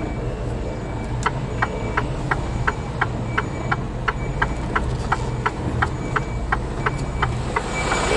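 Tractor-trailer's diesel engine running low as the truck reverses, under an even ticking at about three ticks a second that starts about a second in. A faint high reversing beep comes and goes.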